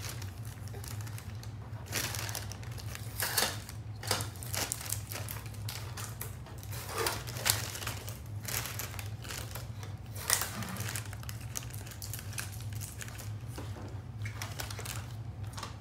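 Irregular clicks, taps and plastic crinkling as hands handle a new Brother MFC printer's casing and its plastic packing, over a steady low hum.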